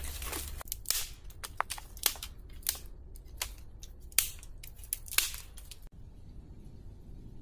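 Wood being broken up by hand: a run of sharp, irregular cracks and snaps, about a dozen in five seconds, then a sudden drop to quiet forest ambience near the end.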